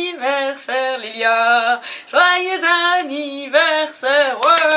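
A woman singing a melody in held notes, ending on one long note. Hand clapping starts near the end.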